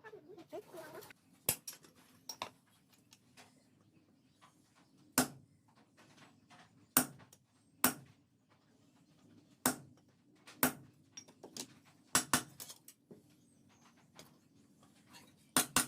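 Hammer striking steel in single sharp metallic blows, about a dozen spaced irregularly a second or two apart, over a low steady hum.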